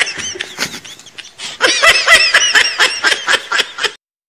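A person laughing in a rapid string of short, pitched bursts. The laugh is quieter at first and louder from about a second and a half in, then cuts off suddenly near the end.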